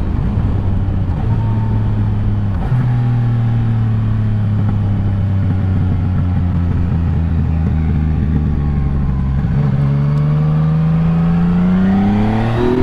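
Yamaha Tracer 900 GT's inline three-cylinder engine running under way at steady revs. After a brief dip about nine seconds in, its pitch rises as it accelerates near the end.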